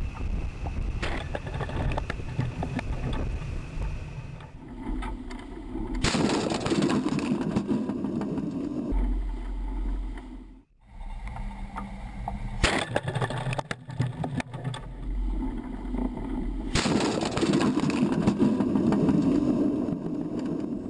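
Wind and water rushing over a microphone on a fast-moving boat, loud and noisy. The sound changes abruptly several times, with a brief dropout about ten seconds in.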